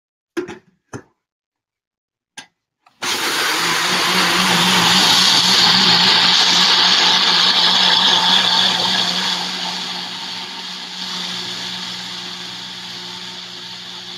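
A few clicks, then about three seconds in a Tribest personal blender starts and runs steadily, its motor whining as it purees toasted sesame seeds with juice, shallot and water into a smooth dressing. It eases a little after several seconds as the mixture blends.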